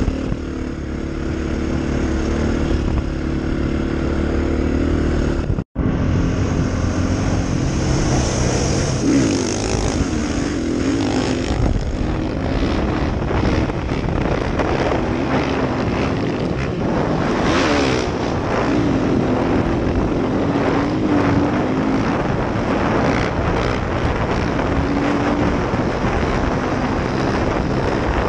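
Dirt bike engine running under way, its pitch rising and falling as the rider works the throttle, with wind buffeting the microphone. The sound cuts out for an instant about six seconds in.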